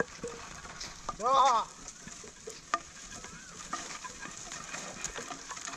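A ploughman gives one short shout to his pair of bullocks about a second in, over a steady scraping and crackling as the wooden plough drags through dry soil. A single sharp tap comes near the middle.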